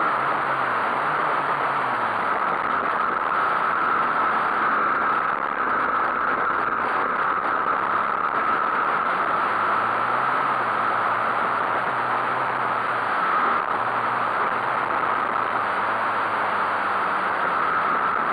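Small pit bike engines running under throttle on a dirt track, the revs rising and falling several times as the rider works the throttle, over a steady rush of wind on the microphone.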